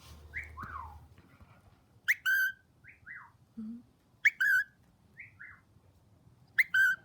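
Cockatiel giving its loud contact call three times, about two seconds apart: each a short rising note followed by a longer, shrill held note. Softer falling whistles come between the calls.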